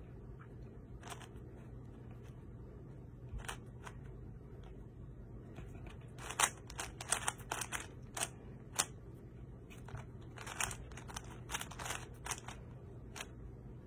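Plastic speed cube being turned by hand during a solve: sharp clicks and clacks of the layers snapping round, a few single ones at first, then quick runs of turns in the second half.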